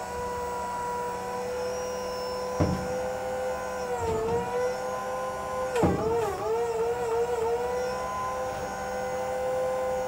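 Electric motor driving the loader's salvaged forklift hydraulic pump, whining steadily. Its pitch sags briefly about four seconds in and again around six seconds as the control valves are worked and the pump takes load. A few short knocks come with the bucket moving.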